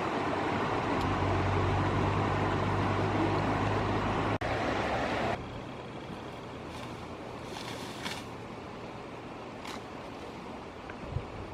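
Steady rushing of flowing river water, with a low hum underneath for the first few seconds. About five seconds in it drops suddenly to a quieter, steady rush with a few faint clicks.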